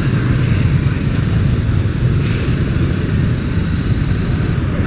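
Loud, steady low rumble of a passing vehicle, with a faint thin high tone that stops shortly before the end.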